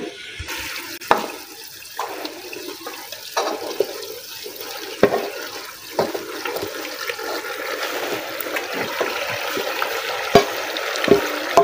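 Fried potatoes, cabbage and carrots tipped into a pot of frying chicken and stirred: a steady sizzling hiss, with a few sharp knocks of a spoon against the pot.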